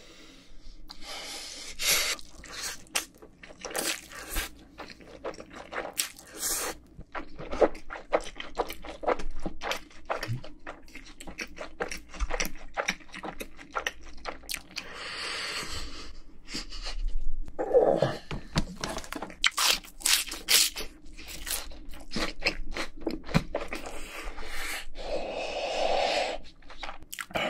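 Close-miked chewing of fried chicken: dense crunching of the crisp coating and wet mouth sounds, with loud clicks and crackles all through. Near the end there is a long puffing exhale through pursed lips.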